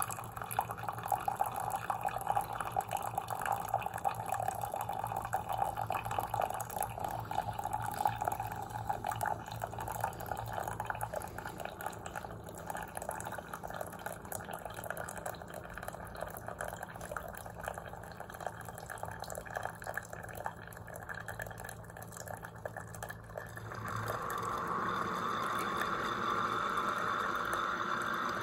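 Mainstays single-serve coffee maker brewing a K-cup: coffee trickles and splashes into a mug, with a low hum under it for the first half. About 24 seconds in, the machine switches to a louder, steady hissing noise, the noisy end stage of the brew cycle.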